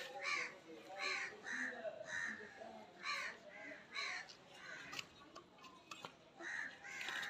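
Crows cawing repeatedly, short calls about one a second, with a brief pause about five seconds in.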